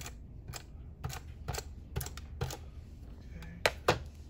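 Clicks and taps from a tape runner being pressed and dabbed on cardstock, about one every half second, with two louder knocks close together near the end as it is set down on the mat.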